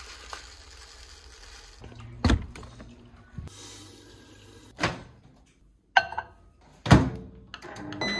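Plastic granules poured into a small ceramic bowl, then a kitchen tap running water into the bowl, with a few sharp knocks as the bowl is handled. Near the end comes a short beep from a microwave as its cycle ends.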